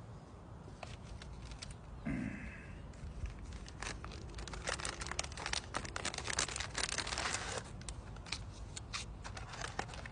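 MRE food pouch and plastic packaging crinkling and rustling as it is handled, in dense crackly bursts, with a brief low hum about two seconds in.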